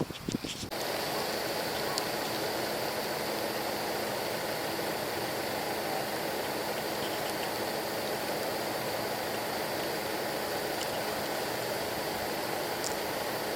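Strong wind: a moment of gusts buffeting the microphone, then, from under a second in, a steady unbroken rushing noise of the wind.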